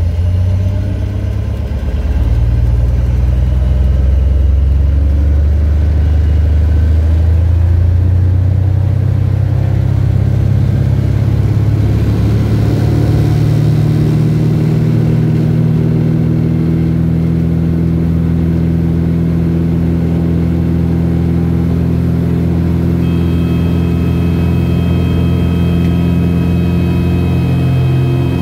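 Single-engine light aircraft's piston engine and propeller, heard from inside the cockpit, coming up to full power about two seconds in for the takeoff roll and then running steadily, its pitch climbing slowly as speed builds. A steady high tone joins near the end.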